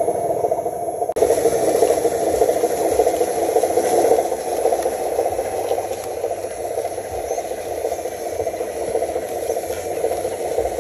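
Electric drivetrain of radio-controlled dump trucks whirring and rattling steadily as they crawl over rough dirt and rubble, with a brief break about a second in.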